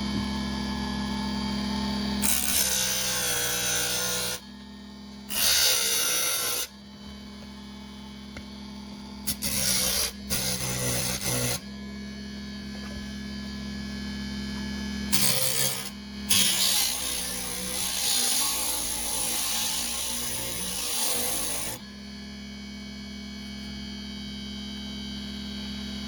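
The electric motor of a dual-motor mini bench table saw runs with a steady hum. Several bursts of harsh cutting noise come through it as work is fed into the tool, the longest lasting about five seconds.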